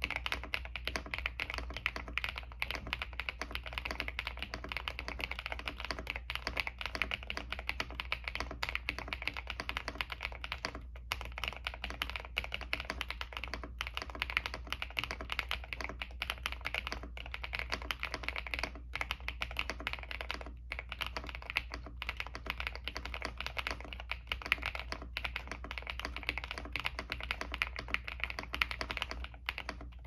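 Steady fast typing on an ilovbee B87 tenkeyless mechanical keyboard, stock and leaf-spring mounted, with its stock switches, stabilizers and double-shot keycaps: a dense stream of key clacks with a few brief pauses.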